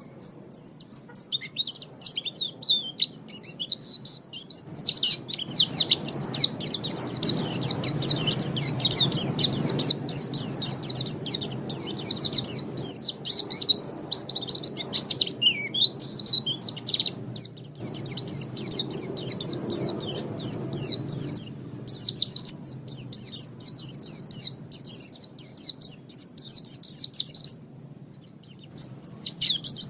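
White-eye (pleci) singing a rapid, unbroken twittering song of high chirps and trills, pausing briefly near the end. A faint low background rumble sits under the song through the middle.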